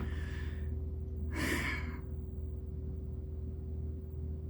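A person breathing out twice in sigh-like breaths, the second about a second and a half in and the stronger, over a steady low electrical hum.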